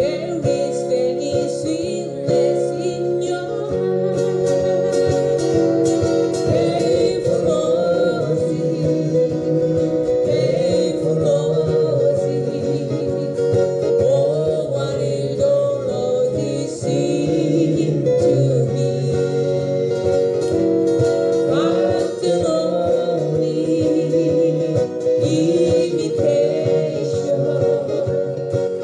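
Live acoustic band: several acoustic guitars strummed in a steady rhythm, with a singing voice carrying the melody over them.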